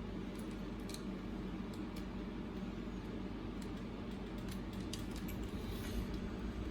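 Steady low hum with a few faint small clicks and taps of tools handling small parts inside an opened iPad.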